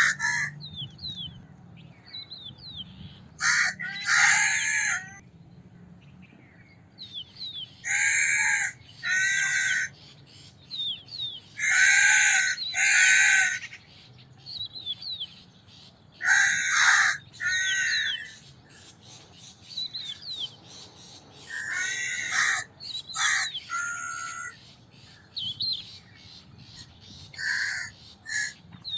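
Crow cawing: harsh caws every few seconds, often in twos or short runs. Faint high chirps of small birds come between them.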